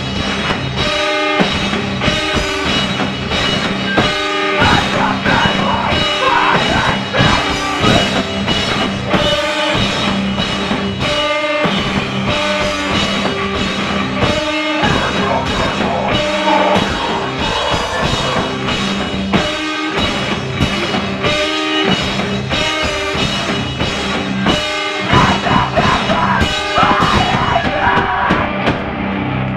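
A live rock band playing at full volume: electric guitars and a drum kit with steady, regular drum hits, and a vocalist's voice in parts of the song.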